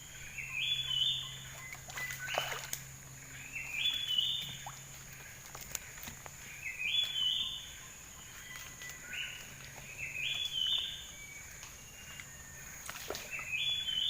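A bird calling over and over, each call a short phrase of two or three notes stepping upward in pitch, repeated about every two seconds. A steady high-pitched whine runs underneath.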